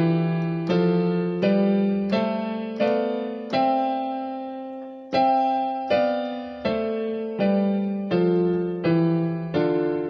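Keyboard with a piano sound playing the C major scale one note at a time, about a note every 0.7 s. It climbs from E up to the top C, which is held about a second and a half, then comes back down from C to D.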